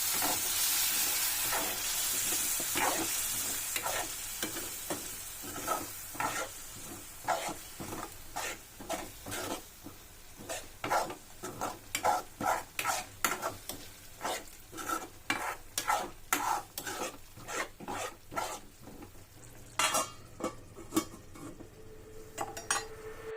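Masala frying in oil in a kadai: a sizzle at first that dies down over the first few seconds, then a spoon stirring and scraping the pan in repeated strokes, about one or two a second.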